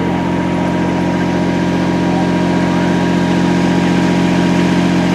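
Diesel locomotive engine idling, a loud, steady low throb with a thin constant whine above it.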